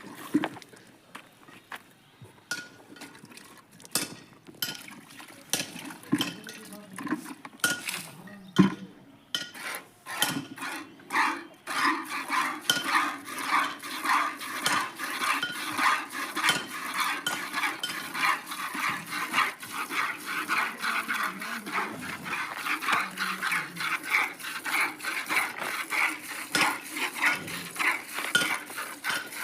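Hand-milking a cow into a metal pail: scattered clinks of the pail, then from about twelve seconds a steady rhythm of milk squirts, about two a second, ringing on the metal.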